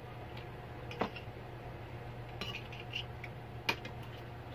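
Spoons and forks clinking and scraping against plates as two people eat, a few separate clinks, the loudest about a second in and near the end, over a low steady hum.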